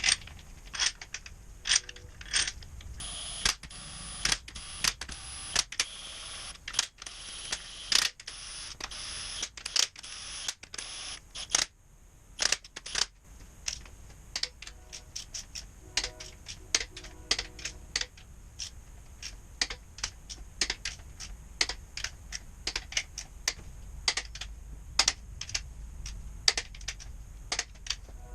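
Metal tools and engine parts clicking and clinking over and over, about two to three sharp knocks a second, with a few short metallic rings. A steady high hiss runs from about three seconds in until about twelve seconds in.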